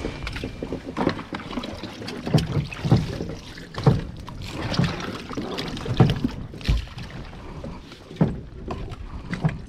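Irregular knocks and thumps aboard a small moored fishing boat, over a low background of water and wind.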